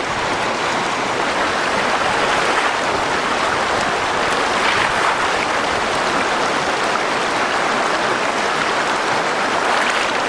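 Shallow, rocky mountain creek rushing over stones close by: a steady wash of moving water, with feet sloshing through it as a person wades across barefoot.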